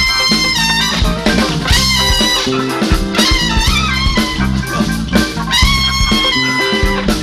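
Live soul-disco band playing: a horn section with trumpet plays long held notes over drum kit, bass and electric guitar with a steady beat.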